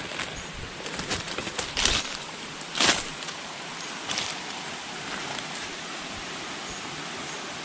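Steady rush of a forest stream, with three short, louder scuffing noises in the first half.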